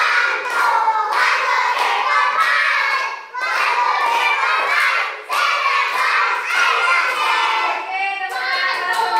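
A group of young children singing together, clapping their hands along.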